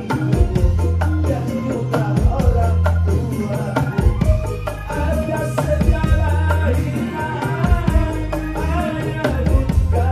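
A live dangdut koplo band playing through a big PA system, with rapid kendang drum strokes over heavy, sustained bass notes and a wavering melody line.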